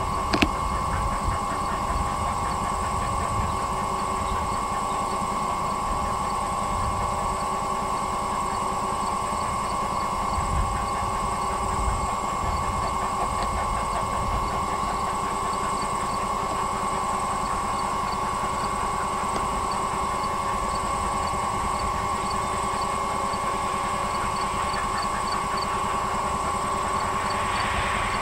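Distant steam locomotive working hard, heard faintly across open fields under a steady high hum and an uneven low rumble of wind on the microphone.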